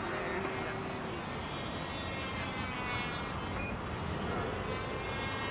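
Motor and propeller whine of a small RC model airplane passing overhead, rising and falling in pitch, over a steady outdoor background hiss.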